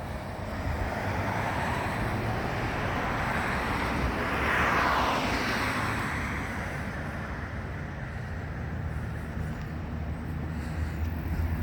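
A passing vehicle, building up, peaking with a falling pitch about four to five seconds in, then fading away.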